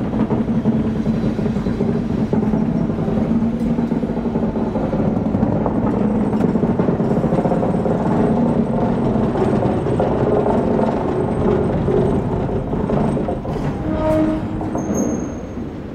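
Class 26 diesel locomotive's Sulzer six-cylinder engine running steadily as the locomotive moves slowly at walking pace, fading near the end as it draws away, with a brief squeal shortly before it fades.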